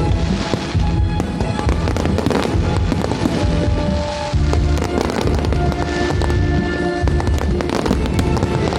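Fireworks bursting and crackling in quick succession, with music playing along.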